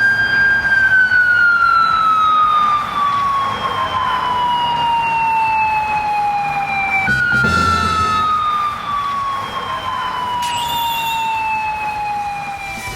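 Japanese police motorcycle siren wailing loudly: the tone holds at its top pitch, then falls slowly for about six seconds, jumps back up about seven seconds in and falls slowly again.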